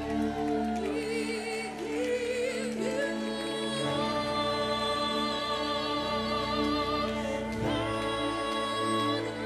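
Gospel worship music: a sustained keyboard pad under a woman's voice singing long held notes with vibrato, with low bass notes coming in about four seconds in.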